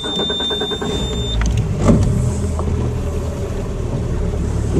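Boat's outboard motor starting up and settling into a steady low running hum about a second in. A high steady beep sounds over the fast clicking at the start and stops a little over a second in.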